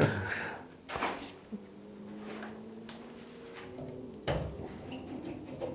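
A kitchen tap being tried with no water coming: a clunk about a second in, a faint steady tone, then another clunk near four seconds.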